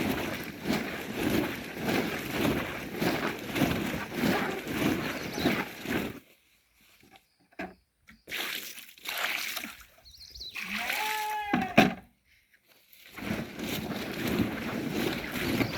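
Carrots being washed in water in a sack, sloshing and splashing in a steady rhythm as the sack is shaken. The washing stops for a few seconds in the middle, when a short rising cry is heard, then starts again.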